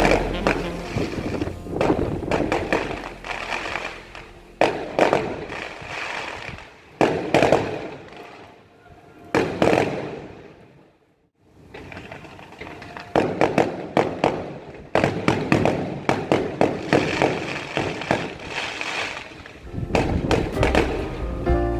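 Fireworks bursting in a long run of bangs and crackles, dying away to a short lull about halfway through, then starting up again.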